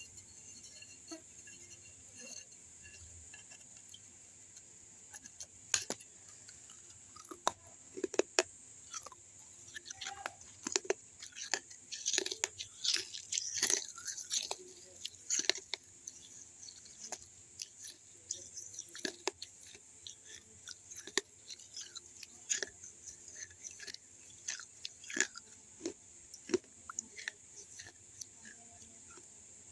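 A person biting and chewing pieces of a baked clay kulhad cup, with sharp crunches that come thick and fast in the middle and more sparsely before and after.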